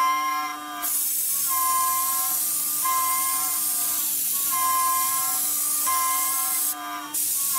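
5-axis CNC router spindle milling a metal block with an end mill: a steady spindle whine under a high hiss of cutting, with a ringing cutting tone that comes and goes in stretches of about a second as the tool engages and leaves the material.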